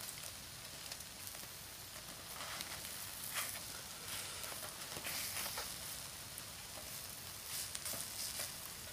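Takoyaki batter sizzling in the hot wells of a Nichinen electric takoyaki maker. Scattered light clicks and scrapes come from skewers turning the balls against the plate.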